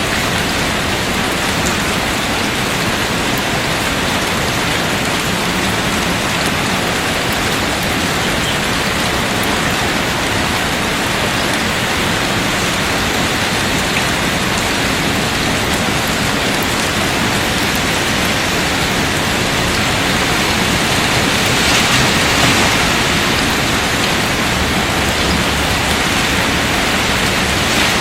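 Steady, heavy rain falling on a surface, an even rushing patter that swells a little about two-thirds of the way through.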